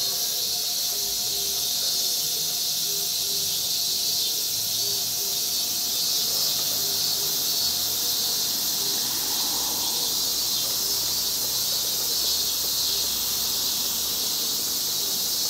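Insects calling in a steady, high-pitched chorus, an unbroken shrill buzz that does not let up.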